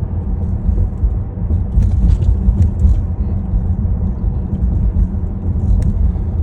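Steady low rumble of tyre and road noise from a Tesla electric car driving, heard inside the cabin, with no engine sound.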